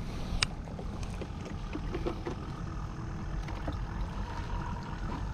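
Steady low rumble of wind and sea at the shoreline, with a sharp click about half a second in and a few faint small knocks.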